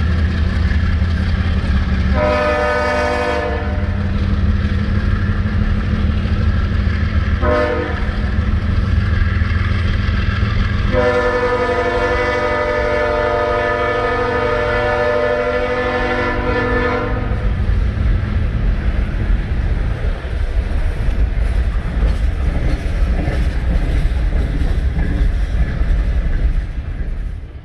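Diesel locomotives working under power, a deep steady rumble as the mid-train distributed-power units go by, then empty coal hopper cars rolling past with wheel clatter. A train horn sounds three times: a short blast about two seconds in, a brief one around eight seconds, and a long blast of about six seconds starting near eleven seconds.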